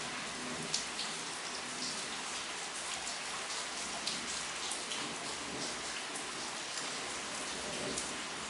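Steady trickling and bubbling of aquarium water, with many small irregular splashes and drips.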